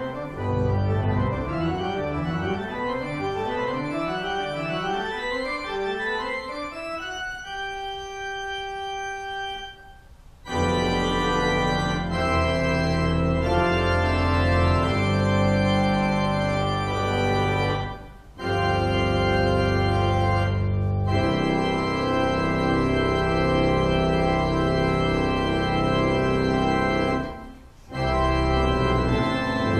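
Church pipe organ playing a solo piece. It opens with quick stepping runs of notes, holds a single note, then moves into full sustained chords, with two brief breaks between phrases.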